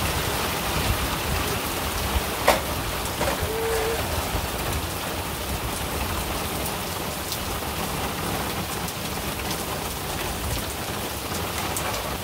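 Heavy rain falling steadily on pavement and grass, with one sharp knock about two and a half seconds in and a brief squeak shortly after.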